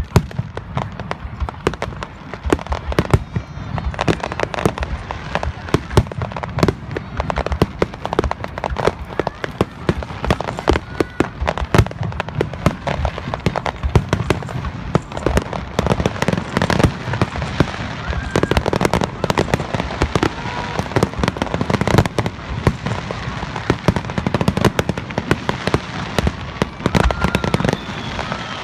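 Fireworks display: a dense, continuous barrage of bursting shells, many rapid bangs and crackles overlapping with no let-up.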